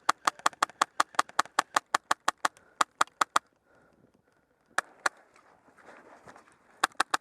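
Airsoft guns firing: a rapid string of sharp shots at about six a second for the first three and a half seconds. Two more shots come about five seconds in, then a quick burst of several near the end.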